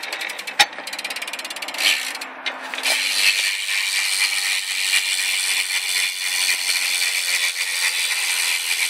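Shadow Raptor BMX rear hub freewheeling, its pawls clicking as the wheel spins. Separate clicks come in short runs at first, then from about three seconds in they merge into a fast, continuous buzz.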